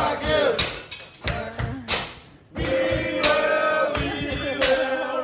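Music with a singing voice holding long notes over a regular beat.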